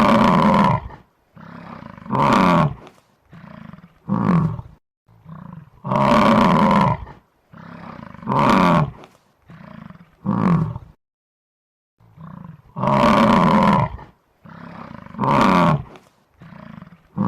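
Gaur (Indian bison) bellowing: a series of loud, drawn-out calls about a second long, each followed by shorter calls that slide downward in pitch. The sequence repeats about every seven seconds.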